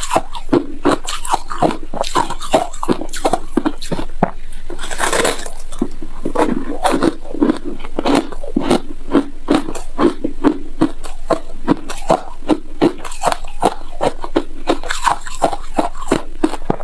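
Close-miked chewing of frozen shaved ice: a steady run of crisp crunches, about three a second, as the icy chunks break between the teeth.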